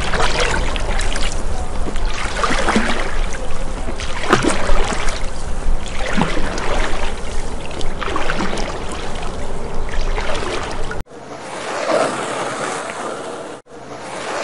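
Cartoon underwater sound effect: a steady rush of water with a deep rumble and occasional bubbling gulps. About three-quarters of the way through it cuts off suddenly and gives way to a softer rushing sound.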